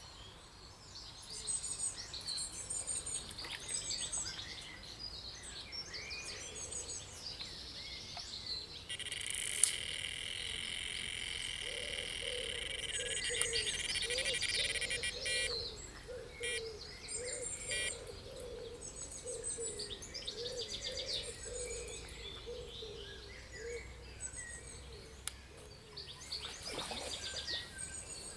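Wild birds singing and calling in waterside trees. About nine seconds in, a steady high whistling tone joins them for about seven seconds and breaks off in a stutter, and a low, repeated wavering call runs under the birdsong for several seconds after it.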